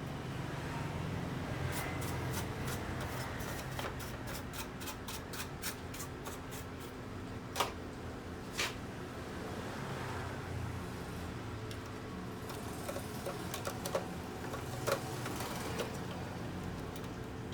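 Light clicks and taps from small printer parts being handled during repair, with a quick run of clicks in the first half and a few separate taps later, over a steady low hum.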